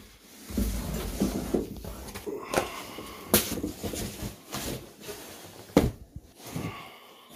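Cardboard boxes being handled: a long product box sliding and scraping out of a shipping carton, with rubbing and rustling and several sharp knocks, the loudest about three and a half seconds in and just before six seconds.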